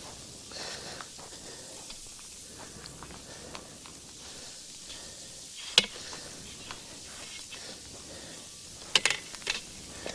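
Ice and snow being cleared off a car with a scraper tool: faint scraping with one sharp knock about six seconds in and a quick run of sharp knocks near the end.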